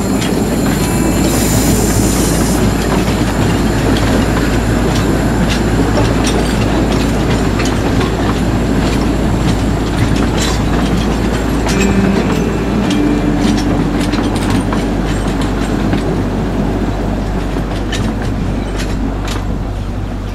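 Two-foot gauge Ng15 steam locomotive and four carriages running down a grade, the wheels clattering over the rail joints. There is a brief high squeal near the start.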